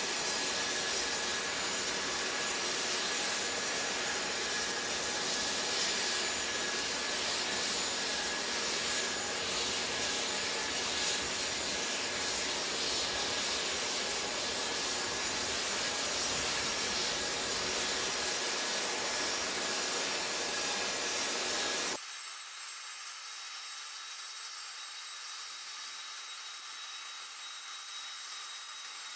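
Steady turbine whine and rush from a C-5M Super Galaxy on the ground. About twenty seconds in, it cuts off abruptly to a quieter, thinner steady whine.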